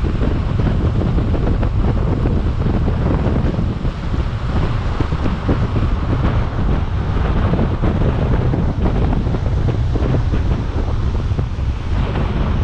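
Wind rushing over the camera microphone at speed, with a steady low rumble of longboard wheels rolling on asphalt.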